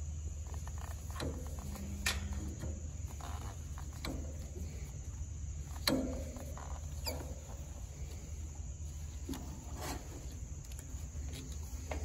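Scattered metallic clicks and scrapes of needle-nose pliers working at the wire connectors melted onto an air-conditioner compressor's terminals, the sharpest clicks about two and six seconds in. A steady high hum of insects runs underneath.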